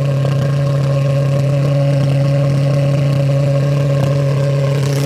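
Small 2 lb-thrust pulse jet engine running steadily on propane: a loud, even, low buzz that holds one pitch without rising or falling.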